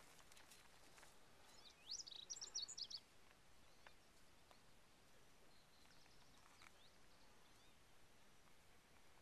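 Near silence with a bird singing once, faintly: a quick run of high chirping notes about two seconds in, lasting about a second.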